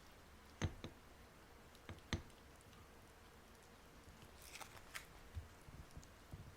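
Faint close-up handling sounds: sharp taps about half a second in and again about two seconds in, then a few light crackly ticks near the five-second mark.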